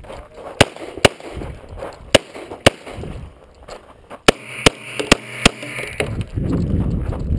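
9mm EAA/Tanfoglio Witness pistol firing eight shots as four quick pairs, two on each target, during a practical-shooting stage. After the last pair comes a steady low rushing noise.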